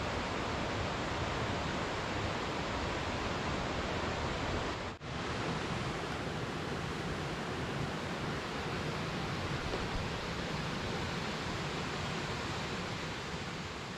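Waterfall, a steady rush of falling water, broken by a short dropout about five seconds in and starting to fade near the end.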